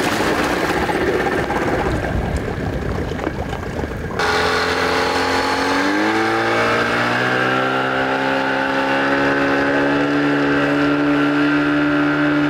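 Water splashing and rushing for about the first four seconds, then a Suzuki outboard motor running, its pitch rising around six seconds in as it speeds up and then holding steady.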